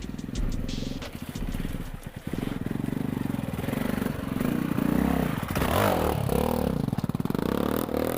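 Adventure motorcycle engine running under way, with the revs rising and falling several times in the second half.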